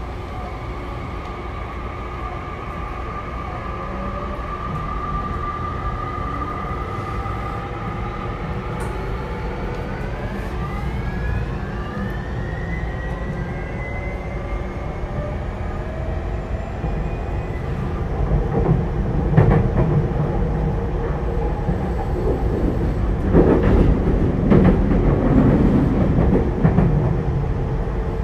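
Tokyu 5050 series electric train (set 5177F) heard from inside the car while accelerating. The VVVF inverter and traction motor whine holds steady tones, then rises in pitch in several gliding tones about ten seconds in. Running noise and knocks from the wheels on the track grow louder toward the end, with the car's air conditioning running underneath.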